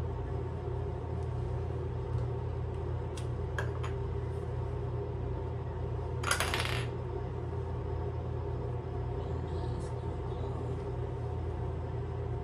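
A steady low hum with a few light clicks and one brief clink-and-clatter about six seconds in, from makeup items and a brush being handled.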